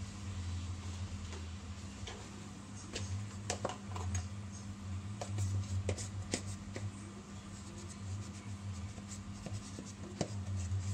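Light clicks and knocks of kitchen containers being handled, among them a plastic tub's lid being taken off, over a steady low hum.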